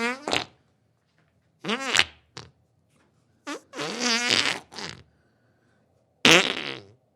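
A person breaking wind: a series of about five farts with short silences between them, several with a buzzing tone that wavers in pitch. The longest comes about four seconds in, and a loud, rasping one comes near the end.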